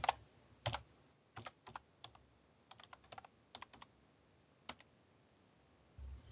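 Faint clicking of computer keyboard keys as a username and password are typed, in uneven clusters of keystrokes with short pauses between them, then one lone keystroke near the end.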